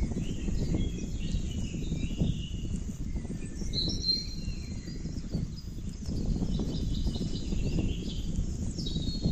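Wind buffeting the microphone with a low, uneven rumble, while small birds chirp and whistle in the background; one clearer whistle comes about four seconds in.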